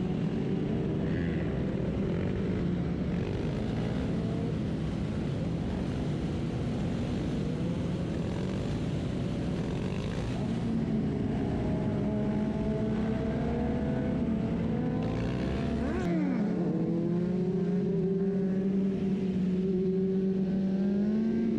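Motorcycle engines running on a street ride, their pitch rising and falling with the throttle over a low rumble. About three-quarters of the way through the rumble drops away and a single engine note holds steadier.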